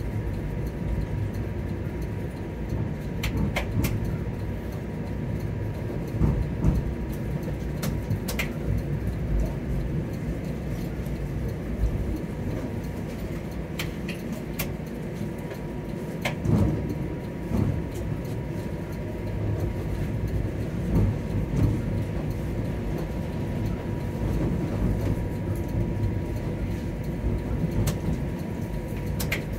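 TTC streetcar running on its tracks, heard from inside the car: a steady low rumble with a few sharp clicks and knocks scattered through it.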